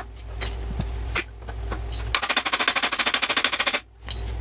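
Impact wrench hammering on a front A-arm bolt in one burst of just under two seconds: rapid, even blows that start about two seconds in and stop abruptly. A few light clicks come before it.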